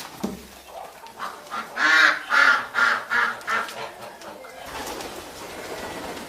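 Domestic fowl calling: a quick run of about five loud calls, a little under half a second apart, about two to three and a half seconds in, with softer calls around them.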